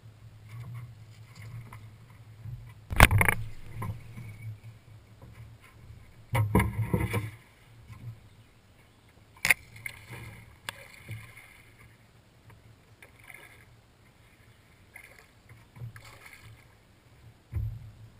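Knocks and thumps on a fishing boat's deck under a low steady rumble: one loud knock about three seconds in, a cluster of knocks and rattles around six to seven seconds in, and a few single knocks later on.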